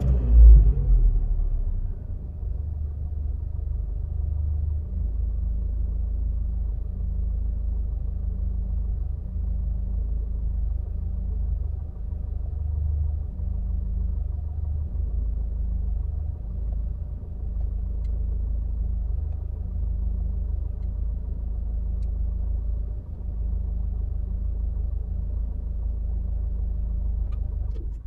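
Car engine just started, settling from a brief flare of revs into a steady idle, then switched off near the end, the sound cutting out.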